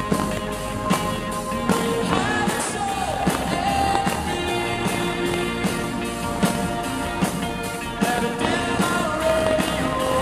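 Live rock band playing a song: a man singing lead over electric guitar and a steady drum beat, recorded from the audience.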